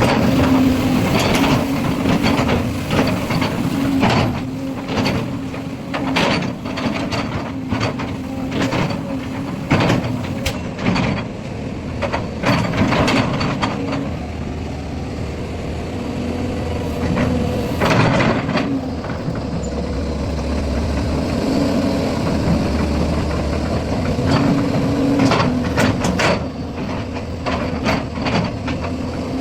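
Volvo 290 excavator's diesel engine running steadily, with many sharp knocks and clanks, most in the first half and again near the end.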